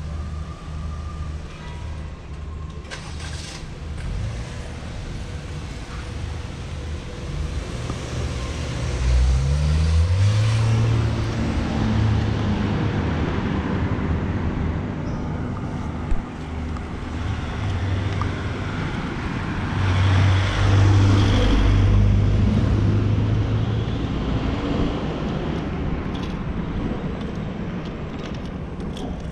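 Road traffic: motor vehicles passing on the street over a steady low rumble. One vehicle's engine note rises as it accelerates past about ten seconds in, and another loud pass comes about twenty seconds in.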